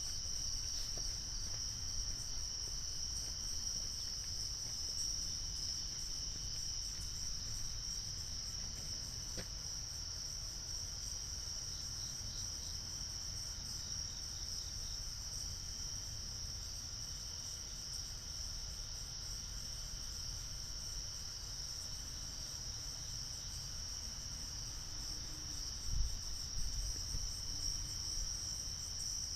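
Steady chorus of night-calling insects, a continuous high-pitched trill, over a low rumble. A brief low thump about 26 seconds in.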